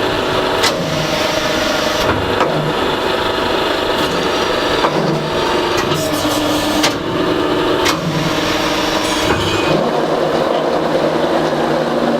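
Hydraulic CNC press brake running during sheet-metal bending: a steady mechanical noise with tones that shift now and then, and a few short knocks.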